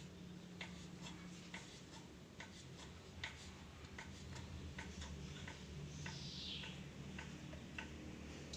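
Knife chopping sausage on a cutting board: faint, regular taps about two a second.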